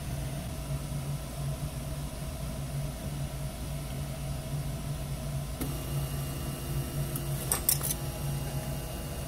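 Qidi X-One 2 3D printer humming steadily with its fans running while it heats. About five and a half seconds in, a higher steady whine joins the hum, and a couple of brief clicks follow.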